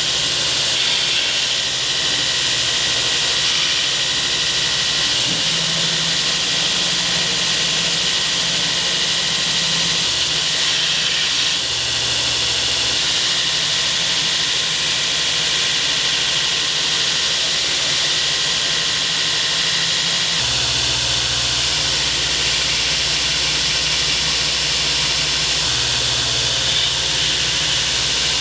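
A 2x72 belt grinder running steadily as knife stock is ground against the belt: a continuous hissing rush. The low hum underneath shifts in pitch a few times.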